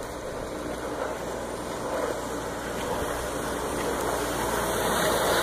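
Outboard motor of a Canestrari Fórmula speedboat running at speed as the boat approaches, its sound growing steadily louder.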